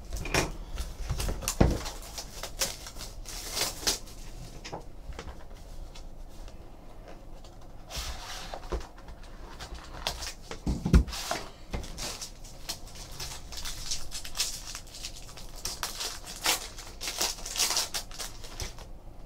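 A Panini Limited hockey card box being opened: a box cutter slitting the wrap, the cardboard box and tray handled, and the foil card pack crinkled and torn open. It comes as scattered rustles, crackles and clicks.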